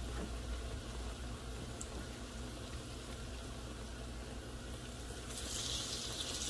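Breaded eggplant slices frying in a pan of hot vegetable oil, a steady bubbling sizzle. About five seconds in, another slice goes into the oil and the sizzle turns louder, with a sharper hiss.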